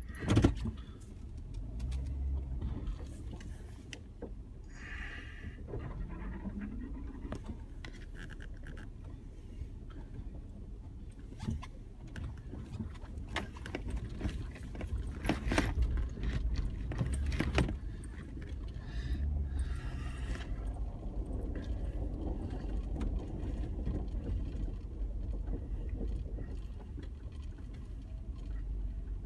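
A 4x4's engine idles along at a crawl with a low, steady rumble. Scattered knocks, creaks and crunches come as the vehicle creeps over a frozen makeshift bridge and ice.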